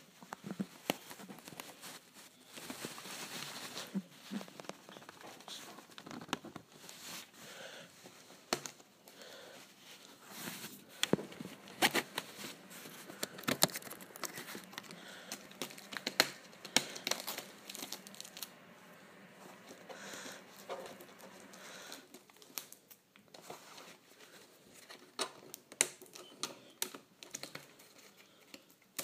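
Plastic shrink-wrap being slit with a folding knife and torn off a VHS tape: irregular crinkling and tearing, broken by many sharp crackles and clicks.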